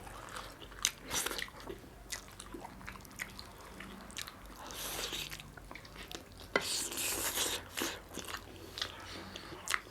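Close-up mouth sounds of a person eating: irregular wet chewing and biting with some crunchy bites, loudest about two-thirds of the way through.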